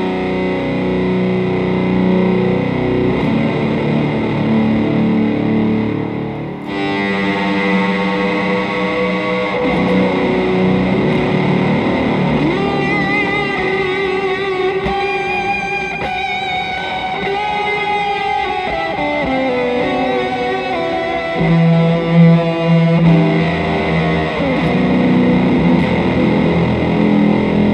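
Electric guitar played through an EarthQuaker Devices Life sub-octave distortion pedal and an Afterneath MK3 reverb together: overdriven, sustained pad-like tones. About seven seconds in the sound turns abruptly brighter, and midway the notes waver and warble.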